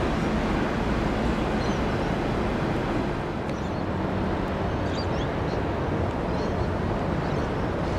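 Steady harbourside city ambience: a dense, even rumble of wind and distant traffic, with a few faint high bird chirps scattered through.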